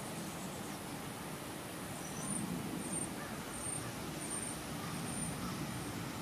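Outdoor background noise: a steady low rumble like distant road traffic, with short high chirps repeating a little faster than once a second.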